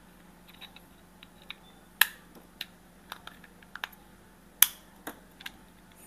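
Plastic clicks and taps from a washing machine's plastic lid-lock housing being handled and snapped back together: a scattering of short sharp clicks, the loudest about two seconds in and again past four and a half seconds.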